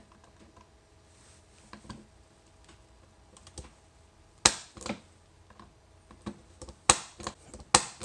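110 punch-down impact tool snapping wires of a Cat6 cable into a keystone jack's metal teeth, one sharp click per stroke, each stroke seating a wire and cutting off its excess. The clicks are faint at first, with a run of about five or six loud ones in the second half.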